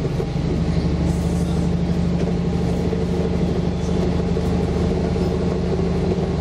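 Diesel railcar running at a steady engine note, with a low rumble from the train underneath.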